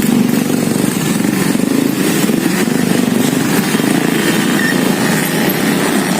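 Steady rumble of road traffic, with motorcycles among it.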